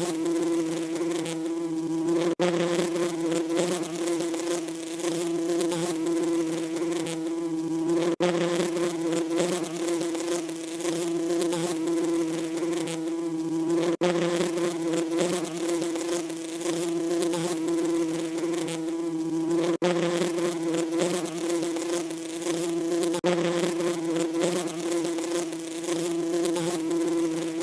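Bees buzzing in a steady, even hum, broken by very short dropouts every few seconds.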